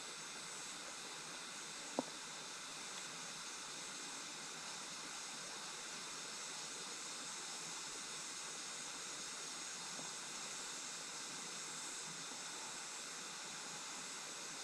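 Steady rushing hiss of a mountain stream's flowing water, with a single sharp click about two seconds in.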